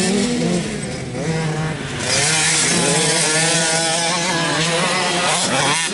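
Quad ATV engines revving on a dirt track, rising and falling in pitch as the throttle opens and closes. They ease off about a second in and pick up loudly again about two seconds in.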